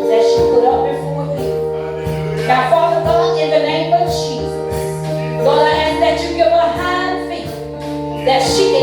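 Gospel music: a voice sings in phrases over long held chords, with light percussion strikes.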